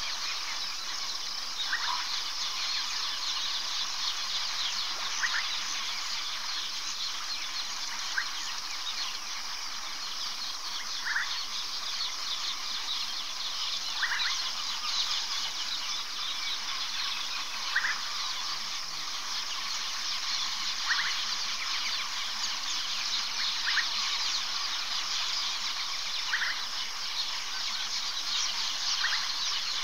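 Steady insect chorus, with a short high call repeating about every three seconds.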